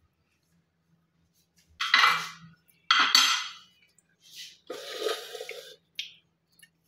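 Kitchen handling noise: a metal fork and aluminium foil scraping and rustling inside an aluminium pressure cooker. It comes in a few short bursts, about two, three and five seconds in.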